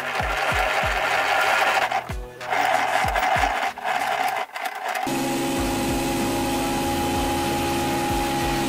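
Ryobi RAP1500G benchtop thickness planer running, its 1500 W motor and cutter head planing a pine pallet board with a loud rushing noise that drops out briefly twice. About five seconds in it changes to a steadier machine hum with several steady tones. A music track with a steady beat plays underneath.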